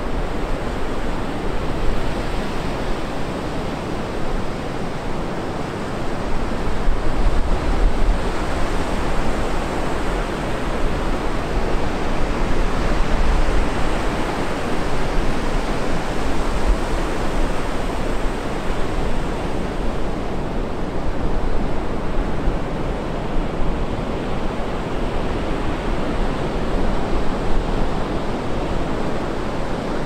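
Atlantic Ocean surf breaking on a sandy beach: a continuous wash of breaking waves that swells a little louder now and then.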